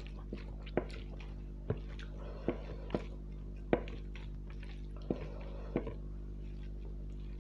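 Wet mouth sounds of a person eating curry and rice: irregular sharp lip smacks and squelches while chewing, about ten in a few seconds, over a steady low electrical hum.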